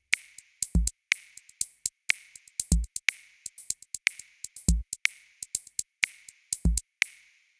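Electronic music with a drum-machine beat: a deep kick about every two seconds under quick hi-hat and snare hits. The track stops abruptly near the end.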